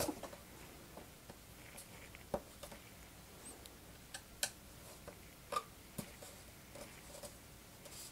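Faint handling of a foam RC biplane's upper wing: small plastic clicks and taps as strut and pin fittings are worked into place by hand, a handful of sharp clicks scattered through.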